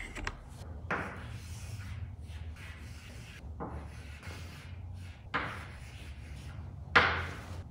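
Chalk scratching on a chalkboard in a series of separate handwriting strokes. The loudest and sharpest stroke comes near the end.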